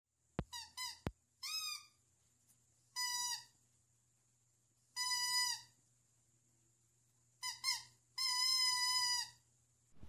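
A dog whining in a series of high-pitched calls: several short ones in the first second or so, then longer held ones about three, five and eight seconds in, the last the longest.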